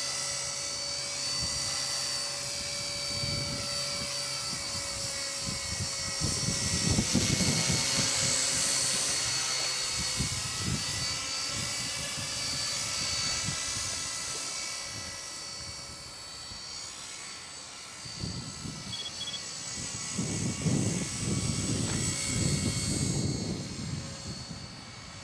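Align T-Rex 250 electric RC helicopter in flight: a steady high-pitched whine from its motor and drive, with rotor noise that swells louder about a quarter of the way in and again near the end.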